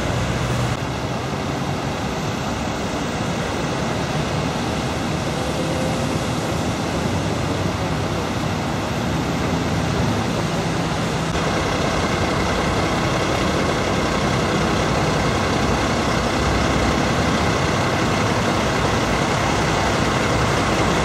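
Steady noise of heavy motor vehicles, road traffic and diesel engines running, with no single event standing out.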